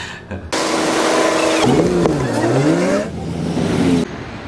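City street traffic at a bus stop, with a city bus's engine running. Loud traffic noise starts suddenly about half a second in, and about a second later an engine revs up and down twice.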